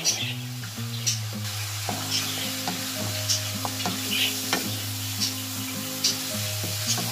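Wooden spoon stirring minced meat with chopped peppers and onion as it fries in a nonstick pan. The meat sizzles, and the spoon scrapes and taps against the pan about once a second. Steady background music plays underneath.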